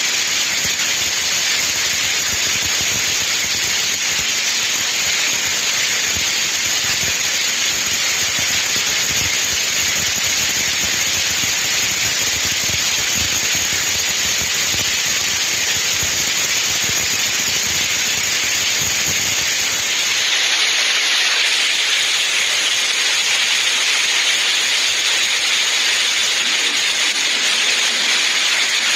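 Steady heavy rain, a dense, even hiss. About twenty seconds in, the sound loses its low end and turns brighter and slightly louder.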